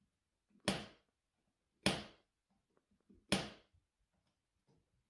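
Wall light switch clicking three times as a cat flips it with its paw, each a sharp click with a short ring-out, a little over a second apart.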